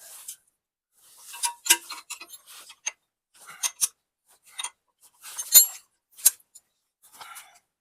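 Metal hand tools clicking and clinking against the stump grinder's PTO slip clutch as a wrench works the 17 mm hex nuts to set its spring heights. Irregular sharp clicks come in short clusters, with a few louder metallic knocks about two, five and a half, and six seconds in.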